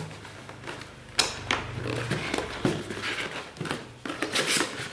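Hands rummaging in a cardboard box and its cardboard insert: a scattered run of taps, knocks and rubbing, with a denser scraping rustle near the end.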